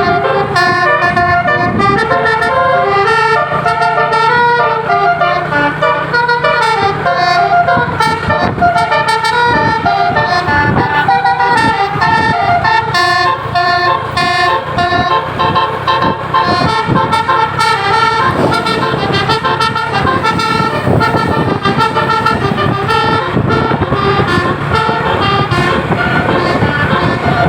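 Indonesian bus "basuri" telolet horn, a multi-tone musical horn, playing quick runs of stepping notes like a melody, over a steady low rumble from the vehicle.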